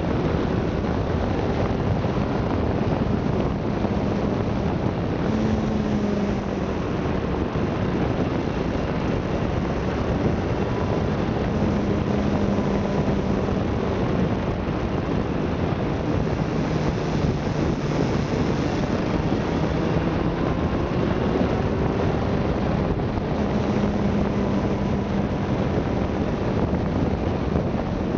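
Wind rushing over the microphone of a moving motorcycle. Beneath it is a faint engine hum that steps up and down in pitch as the speed changes.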